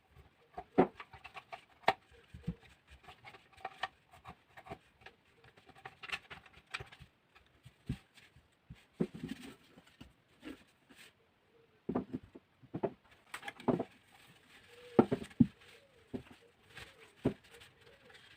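Irregular clicks, taps and knocks of a half-scale dress form and its packaging being handled, with a few sharper knocks in the second half.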